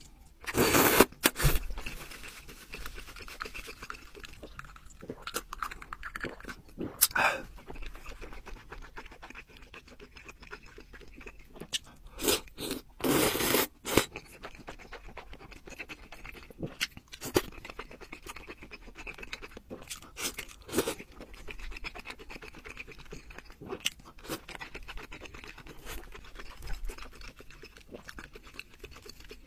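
Close-miked eating sounds: noodles slurped loudly from a bowl of soup, about a second in and again around the middle, with chewing and wet mouth noises between.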